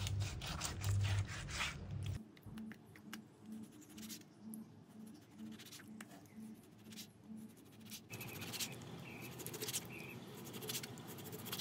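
Kitchen knife slicing raw pork liver on a plastic cutting board: irregular soft cuts, taps and scrapes of the blade against the board.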